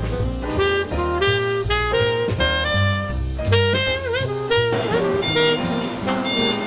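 Jazz music: a horn melody with bending notes over a stepping bass line and drum kit, with cymbals coming in about five seconds in.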